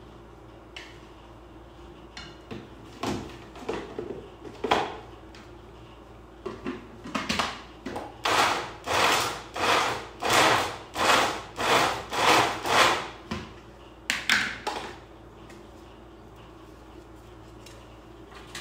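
Rhythmic scraping or rubbing strokes, about one and a half a second for several seconds in the middle, with a few scattered strokes before and after.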